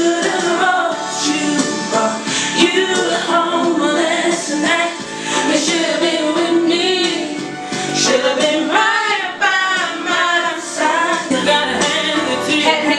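A recorded pop song with female lead vocals over backing music and a steady beat.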